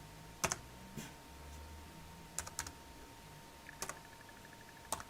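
Laptop keyboard keys pressed one at a time: about six short, separate clicks spread over a few seconds, as a date is keyed into the BIOS setup.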